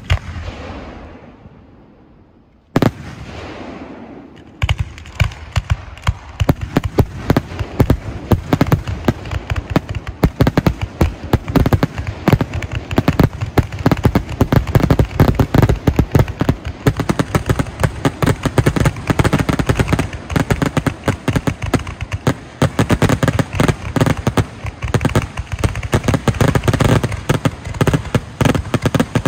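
Fireworks finale. Two single aerial shell bursts, each with a long fading echo, then from about four seconds in a rapid, continuous barrage of bangs and crackles that carries on to the end.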